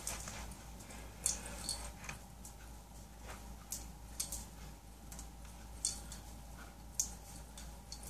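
Quiet room with a steady low hum and about six faint, irregularly spaced light clicks and rustles, the kind made by a person moving about with bracelets and rings on.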